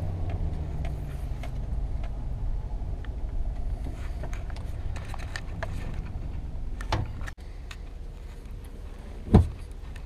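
Heavy-duty 3500 pickup truck's engine running at idle, heard from inside the cab, with a click about seven seconds in and a sharper thump near the end.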